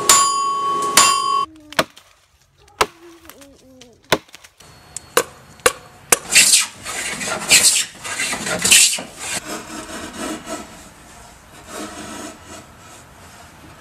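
Hammer blows on hot steel at an anvil, the anvil ringing after each strike, for the first second and a half. About five seconds in come a few sharp chopping strikes as a wooden bowl blank is hewn, then the hiss and scrape of wood being cut. Near the end a curved carving tool scrapes shavings out of the inside of a wooden bowl, more softly.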